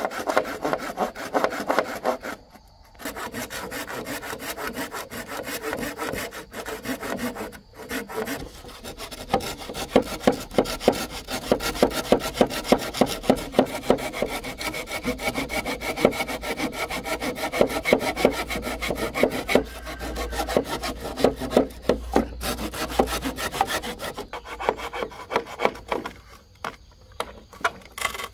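Rapid, rhythmic rasping strokes on wood, with a couple of short breaks.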